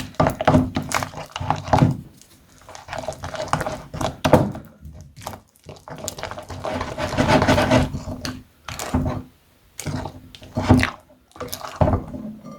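Slime being mixed in a bowl: irregular wet squelching and scraping with short thuds, as glue, beads and borax-glycerin activator are worked together and set into slime.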